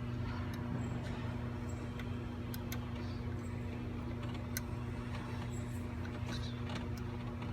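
Scattered light clicks and taps of hand work in the engine bay, plugging electrical connectors back on, over a steady low hum.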